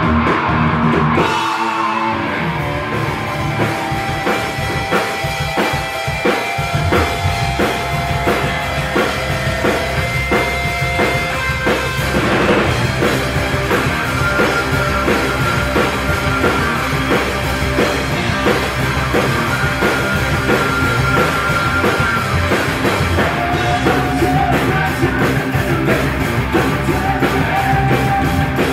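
Rock band playing: electric guitar over a drum kit keeping a steady beat.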